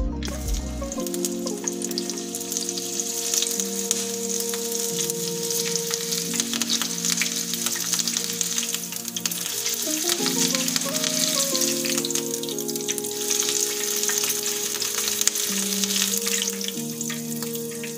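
Green chillies deep-frying in hot oil in a kadai, held in a wire spider strainer: a steady, dense crackling sizzle.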